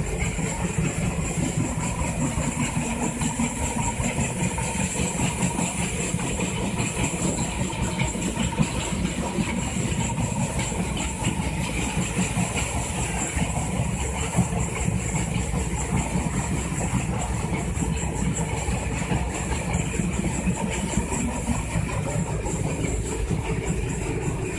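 Diesel train running along the track, heard from the open end of a carriage. Its wheels on the rails make a steady rumble throughout.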